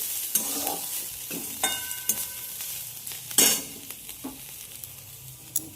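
Boiled banana flower sizzling in hot oil in a pan while a spatula stirs it, scraping against the pan, with one loud scrape about three and a half seconds in.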